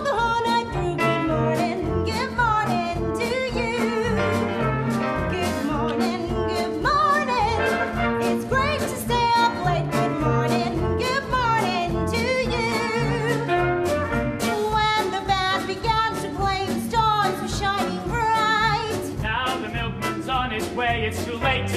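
Upbeat swing-style show music played by a band with brass, with short sharp beats running through it.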